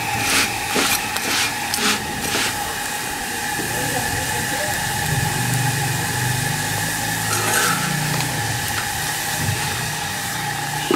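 Metal spatula tapping and scraping against a stack of parathas on an iron tawa, several short taps in the first couple of seconds. A steady hiss and hum from the hot pan and stove runs underneath, with a low rumble swelling midway.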